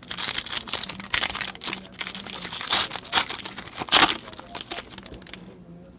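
Shiny foil wrapper of a hockey card pack being torn open and crinkled by hand: a dense, irregular crackling with its loudest crackle about four seconds in, stopping shortly before the end.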